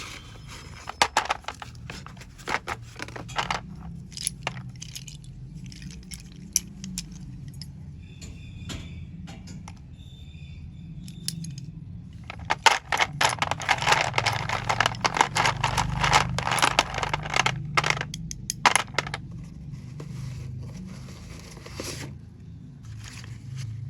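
Slate pencils clicking and clattering against each other as they are handled, with scraping. A dense run of clatter, like pencils being poured or shaken out, starts about halfway through and lasts several seconds.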